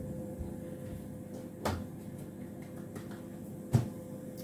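Two sharp knocks about two seconds apart, the second louder, over a steady hum from a running kitchen appliance.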